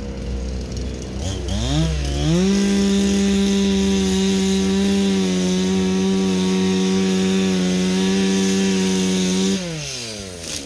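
Chainsaw revved up from idle to full throttle about a second and a half in, held at a steady high pitch for about seven seconds while sawing into the tree trunk, then dropped back toward idle near the end.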